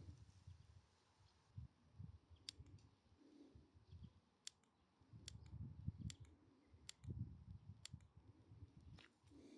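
Near silence broken by about half a dozen faint, sharp clicks at irregular intervals and some soft low knocks, mostly in the second half.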